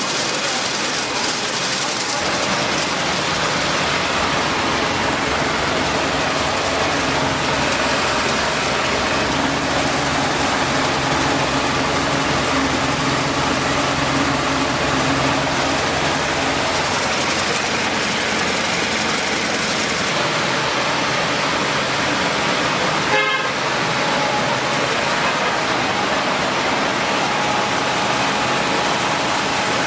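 Maize milling machinery running steadily: a loud, even mechanical noise with no pauses. A brief sharp knock sounds about 23 seconds in, and a thin steady tone can be heard after it.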